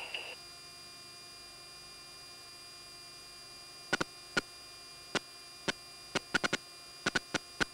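Steady electrical hum with a thin high whine on the Tornado GR4's cockpit intercom recording, with no engine noise heard. A high tone cuts off just after the start. From about four seconds in come a dozen or so sharp clicks at irregular intervals.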